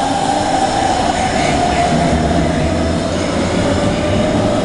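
A DB Class 474 S-Bahn electric multiple unit moving away along an underground station platform. It gives a steady electric whine that slowly falls in pitch, over the low rumble of the train running.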